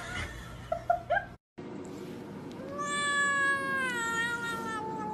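A cat's long, drawn-out meow that starts about two and a half seconds in and slowly falls in pitch as it is held. Before it, about a second in, come a couple of short knocks and squeaks.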